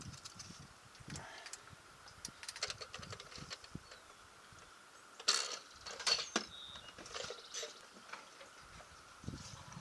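Scattered light clicks and clatter of hand tools and parts being handled, with two louder knocks about five and six seconds in.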